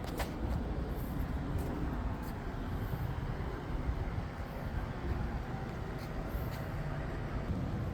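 Steady low outdoor rumble with a few faint clicks and no clear pitch or rhythm.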